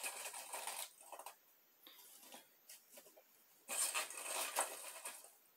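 Dry pieces of bark rustling and scraping in a stainless steel bowl as a gloved hand picks through them, in two bouts: one at the start lasting about a second, and another starting nearly four seconds in.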